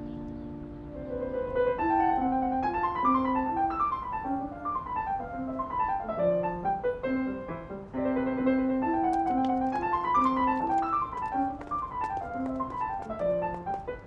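Solo piano music: a gentle melody over rolling broken chords, opening from a held chord, with runs of notes rising and falling.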